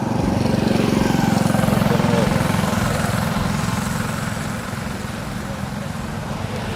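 A motor vehicle's engine passing close by on the street, growing louder about a second in and then fading away.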